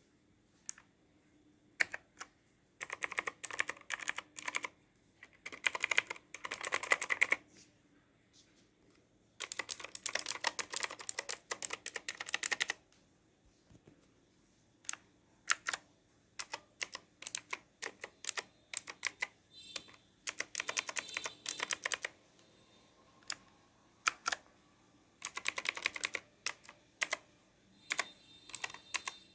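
Typing on a Mumre Wrangler K100 mechanical keyboard with clicky blue switches: fast runs of keystrokes broken by short pauses and single key presses.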